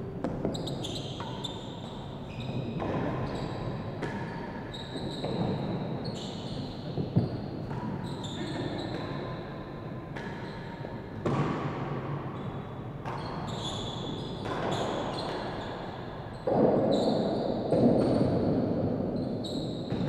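Real tennis rally: the solid cloth-covered ball is struck by wooden rackets and knocks off the floor, walls and penthouse roof of the indoor court, the hits coming every second or so and echoing in the large hall. Near the end there is a louder stretch of noise lasting a couple of seconds.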